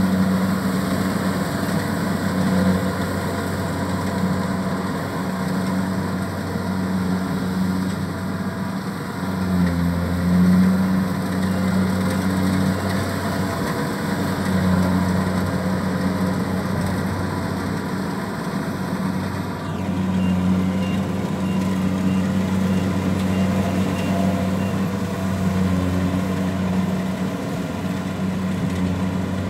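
Rice combine harvester's engine running steadily as it harvests, a low hum that swells and eases slightly every few seconds.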